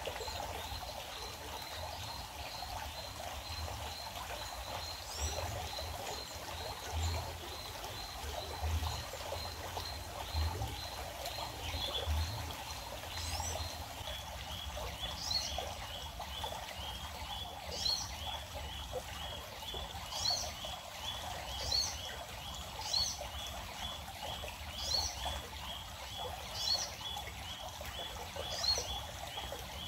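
Creekside ambience: water trickling steadily, with a run of short high chirps about three a second throughout. From about halfway, a bird repeats a short rising call every two to three seconds.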